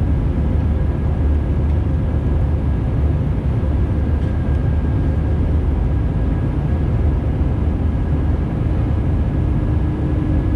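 Airbus A320neo jet engines running steadily: a continuous low rumble with a faint, even whine above it. A low hum joins about three-quarters of the way through.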